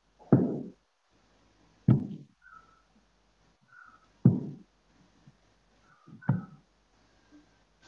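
Four knocks or thumps, about two seconds apart, each dying away quickly.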